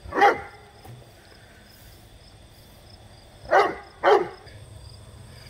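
A dog barks three times: once right at the start, then twice in quick succession about three and a half seconds in.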